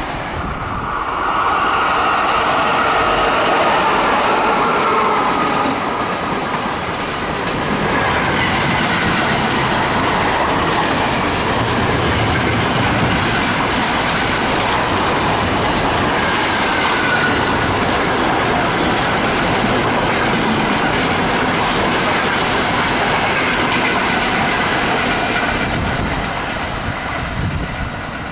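Container freight train rolling past at speed, its wagons' wheels clacking over the rail joints in a steady rush of rail noise, with some wheel squeal.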